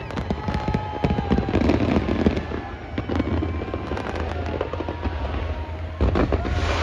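Large aerial fireworks display going off: a dense run of bangs and crackles over a steady low rumble.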